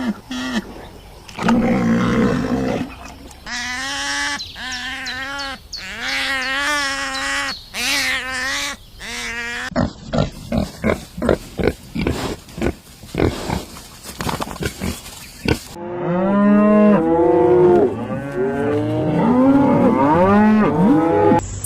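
Farm animals calling in a run of separate clips: wavering pitched calls in the first half, then a quick series of short sharp sounds, then several overlapping calls that rise and fall in pitch.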